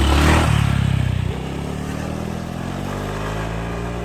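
Motorbike engine revving as it pulls away, loudest in the first second or so, then running steadily.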